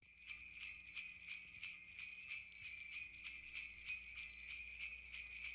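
Sleigh bells shaken alone in a steady rhythm, about three shakes a second, as the opening of a Christmas hip-hop track.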